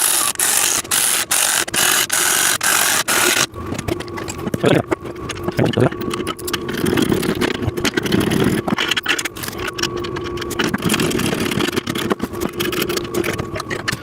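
Power drill driving the machine's bolts in: a loud burst of running for the first three seconds or so, then a steadier whine broken by clicks and rattles.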